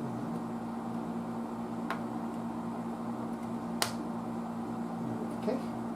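A steady low machine hum in the room, with a few sharp light clicks of small objects being handled on the bench; the loudest click comes about four seconds in.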